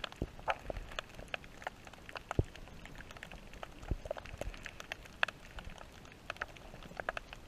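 Underwater crackle: irregular sharp clicks and pops, a few of them fuller and louder, over a faint steady hiss, as picked up by a camera held underwater.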